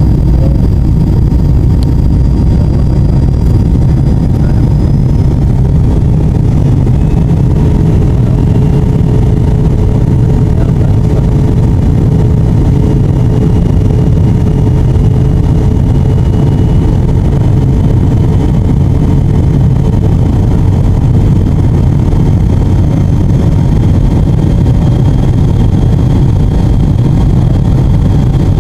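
Aircraft cabin noise in flight: the engines and airflow make a loud, steady, low drone heard from inside the cabin, with faint whines that drift slowly in pitch.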